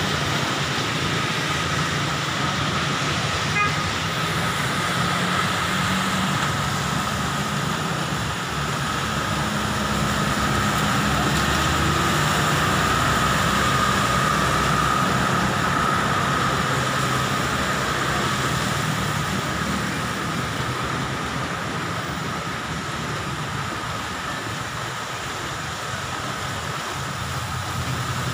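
Heavy rain falling steadily, with a vehicle engine running underneath it.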